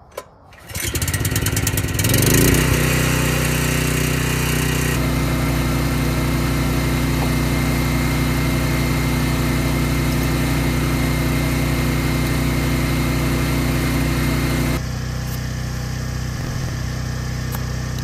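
Portable generator starting up about a second in, then running steadily at a constant speed. From about three-quarters of the way through it is quieter and duller.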